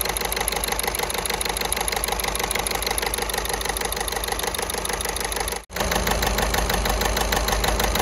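Volkswagen Golf 6 1.6 TDI four-cylinder common-rail diesel idling with a steady, even clatter while one injector is unplugged. Cutting that injector calms the engine, the sign that this injector is not the one causing its knocking and shaking. The sound briefly cuts out about two-thirds of the way through.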